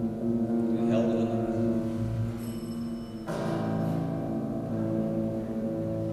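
Improvised piano chords ringing out and sustaining, with fresh chords struck about a second in and again just after three seconds, and a brief high ringing note in between.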